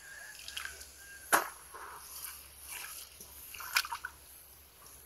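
Bare feet sloshing and splashing in shallow muddy water, with two sharp splashes, about a second and a half in and nearly four seconds in.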